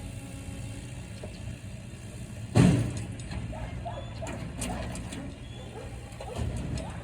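Heavy machinery lifting a large oak log onto a trailer: an engine running steadily, one heavy thud about two and a half seconds in, then scattered metallic clanks and creaks.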